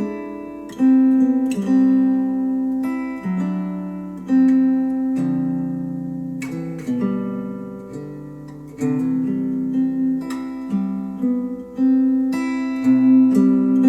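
Acoustic guitar music played through Focal Chora 806 bookshelf speakers: plucked and strummed chords, each struck sharply and left to ring, a new one every second or so.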